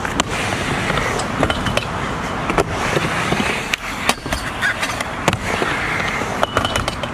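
Skateboard wheels rolling on a mini ramp, a steady rumble, with sharp clacks of the board and trucks hitting the ramp surface and metal coping scattered through.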